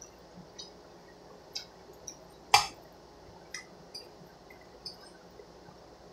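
Metal spoon clinking and scraping against a stainless steel pot, in scattered light clicks with one louder clink about two and a half seconds in.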